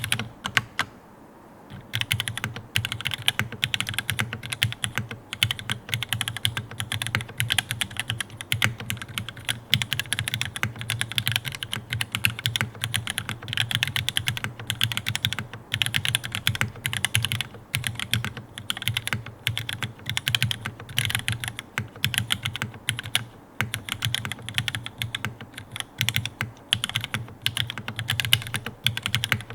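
Mechanical keyboard typing: a Spyder TKL with stock TTC PT Black linear switches, GMK keycaps, a carbon fiber plate and O-ring mounting, keys bottoming out in fast, continuous keystrokes. There is a brief pause in the typing near the start.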